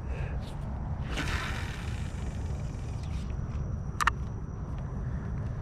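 A cast with a spinning rod: a swish and line paying out off the reel, about a second in and lasting under a second. A short sharp click follows about four seconds in, over a steady low rumble.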